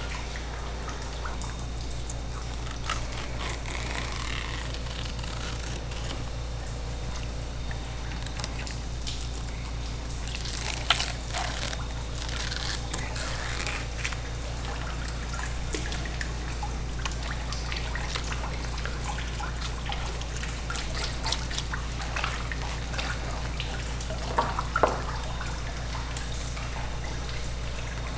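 Tap water running and trickling onto a wet steel fish-cleaning counter while eels are being filleted, over a steady low hum. A few sharp knocks of the work on the counter stand out, one about eleven seconds in and a pair near the end.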